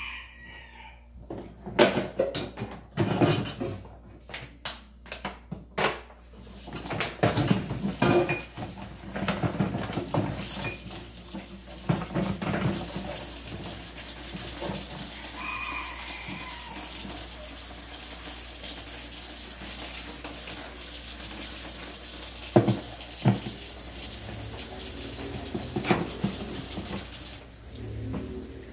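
Dishes washed by hand at a kitchen sink: a few seconds of clattering plastic dishes, then the tap runs steadily into the sink while plastic bowls and tubs are rinsed. A few sharp knocks come near the end.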